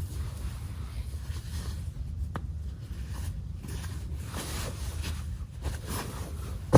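Soft handling and rustling noises with a couple of clicks over a steady low rumble; a sharp click near the end is the loudest sound.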